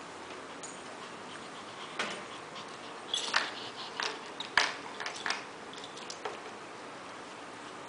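Small Shih Tzu–Pomeranian mix dog playing with a plastic toy bone on a tiled floor: a scatter of short clicks and knocks from about two seconds in until about six seconds in.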